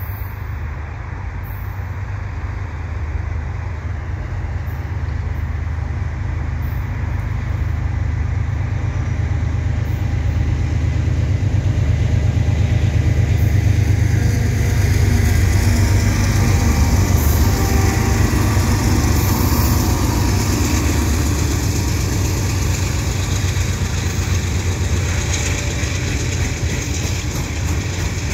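Diesel-electric freight locomotives approaching and passing, the low engine hum growing louder until about halfway, then freight cars rolling by with steady wheel-on-rail noise.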